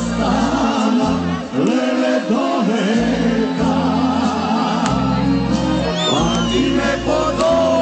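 A Macedonian folk song played live by a band with a male singer on microphone, amplified through a stage PA, with a steady bass line under a wavering, ornamented melody.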